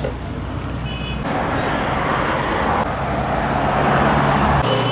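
Road traffic noise: a vehicle going by on the road, growing louder over a few seconds, then cutting off sharply near the end.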